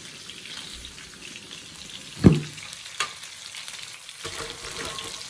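Pieces of chicken back sizzling in hot oil in a frying pan, with small clicks of a fork or turner against the pan as they are moved and lifted out. A loud knock about two seconds in, and a sharp click a second later.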